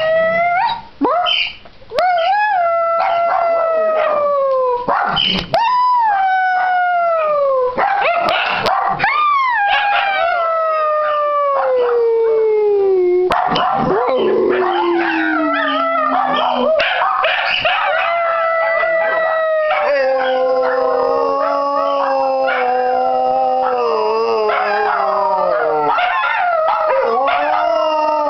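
Dachshunds and a black-and-white dog howling together. Long howls slide down in pitch, and from about halfway through several voices overlap at different pitches.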